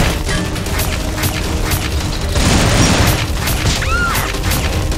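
Dubbed gunfire sound effects over action music: a run of sharp shots about twice a second with booming hits. A short cry about four seconds in as the girl is hit.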